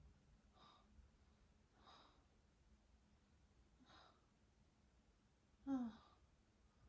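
Soft, faint breathing of a woman dozing sitting up, one quiet breath every second or two. Near the end comes one short voiced breath, a brief sigh, which is the loudest sound.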